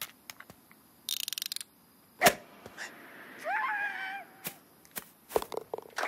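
Cartoon sound effects: scattered clicks, a short fast rattle about a second in, then one sharp loud hit. Past the middle, the ostrich character gives a brief wavering call, and a few more clicks and a thud follow near the end.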